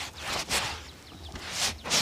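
Shoe-shine brush strokes across a leather shoe: a few short, hissy strokes, roughly a second apart.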